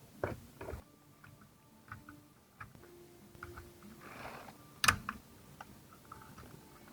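Plastic electrical connectors being unclipped and handled under a car's steering column: scattered small clicks and light knocks, with one sharp click just before five seconds in.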